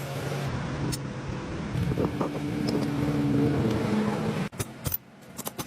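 A motor running steadily, with a pitched hum and a small rise in level partway through. It cuts off abruptly about four and a half seconds in, followed by several sharp clicks.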